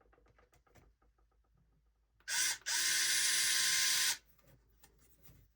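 Electric drill-driver driving a 35 mm screw through a wheel into a 3D-printed snowmobile skid rail: a short blip of the motor, then a steady whir of about a second and a half that stops abruptly. Faint clicks of parts being fitted come before it.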